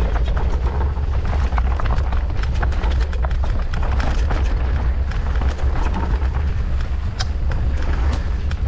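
Mountain bike descending a rough trail at speed: wind noise on the microphone throughout, over frequent sharp clicks and rattles from the bike and tyres on the rocky ground.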